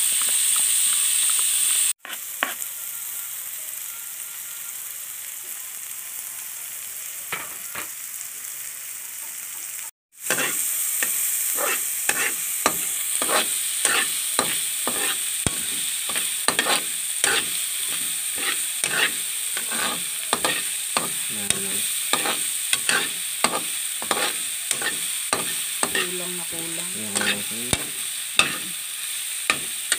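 Hot fat sizzling in a metal wok, broken off abruptly twice. From about ten seconds in, a metal spatula scrapes and stirs diced vegetables through the sizzling fat, about two strokes a second.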